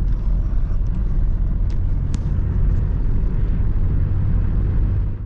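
Steady low rumble of a vehicle on the move, with a couple of faint ticks about two seconds in; it cuts off suddenly at the end.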